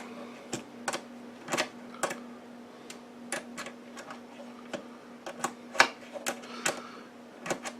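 Irregular small metallic clicks and taps as the SMA coax connectors on an oscilloscope's hybrid modules are handled and unscrewed, about two clicks a second, over a steady faint hum.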